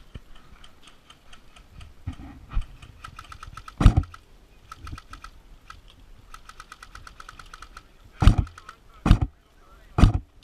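Two runs of rapid, even clicking from airsoft guns firing on full auto, with several louder, heavier thumps, three of them about a second apart near the end.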